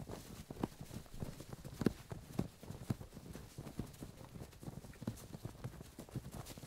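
Foley sound effect of movement over a battlefield: irregular trampling steps and thuds, several a second, with a few sharper, louder strikes.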